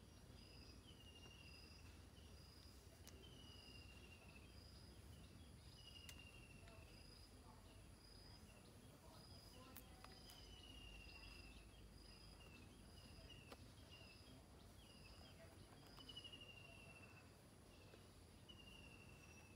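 Faint outdoor ambience: a bird repeats a short falling whistled note every two to three seconds over the steady pulsing chirr of insects.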